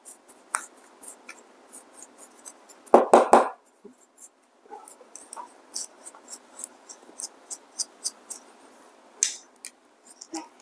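Small brush scrubbing coffee grounds out of a DF64 grinder's exit chute: a run of quick, irregular scratchy bristle strokes. A brief louder sound about three seconds in.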